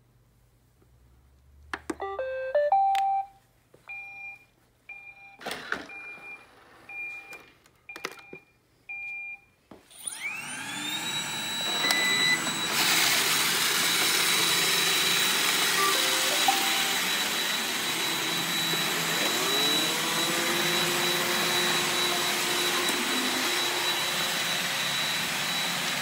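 A robot vacuum cleaner starting up. A short rising chime plays, then a row of about six short beeps. About ten seconds in, the vacuum motor spins up, rising in pitch, and then runs steadily with a high whine.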